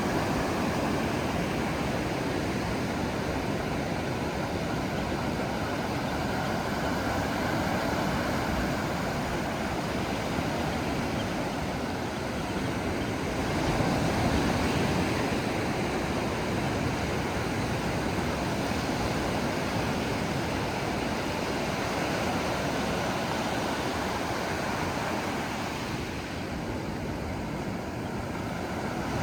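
Ocean surf washing steadily, swelling a little about halfway through and easing off near the end.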